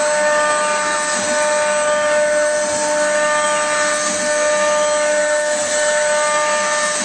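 CNC router running an automatic machining job: a steady whine with several held tones, and fainter tones rising and falling as the axes move.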